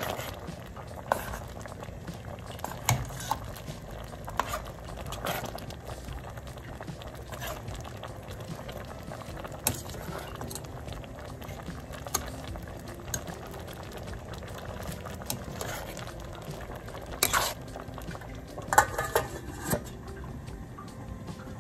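Pot of stew peas bubbling at a simmer, with a metal ladle clinking now and then against the stainless steel pot as it is stirred. A few louder clanks come near the end as the lid is set on the pot.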